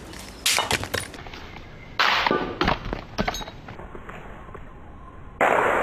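Several sharp crashing, cracking impacts in clusters: one about half a second in, more around two to three seconds in, and a loud one near the end, each ringing off briefly.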